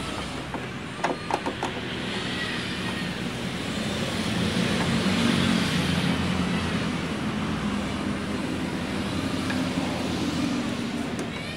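A hand screwdriver drives screws into the plastic back cover of a CRT TV, with a few quick clicks about a second in. Underneath is steady road-traffic noise that swells in the middle.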